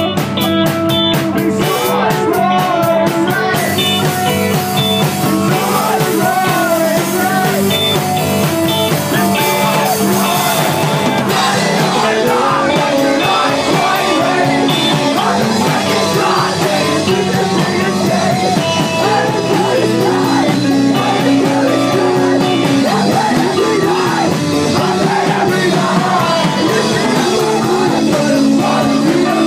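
Live rock band playing loud, with guitars, bass and drums and sung vocals; cymbals crash heavily in the first third.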